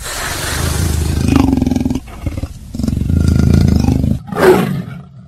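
Big-cat roaring played as the sound of a black panther: two long, rough calls of about two seconds each, then two shorter ones near the end.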